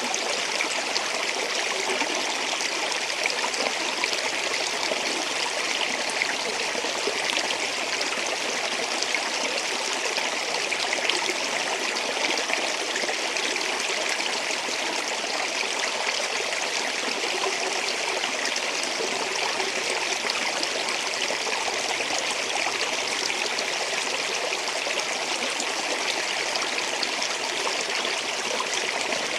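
Flowing water running steadily, an even rush with no let-up and no pauses.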